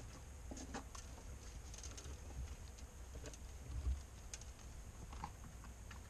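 Sparse, irregular light ticks and taps over a low rumble, with a faint steady high hiss.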